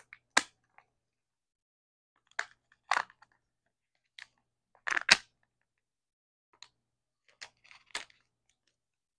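Thin plastic sealing lid being peeled off the toy half of a Kinder Joy egg's plastic capsule, and the capsule handled: a series of short crinkles and crackles, the loudest about five seconds in.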